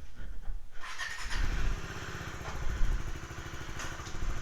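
Motorcycle engine running at low speed: a steady low rumble of rapid firing pulses that grows fuller about a second in.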